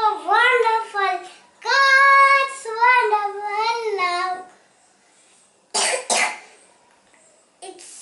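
A little girl singing a nursery rhyme unaccompanied; after she pauses, a short double cough comes about three-quarters of the way through, and the singing starts again right at the end.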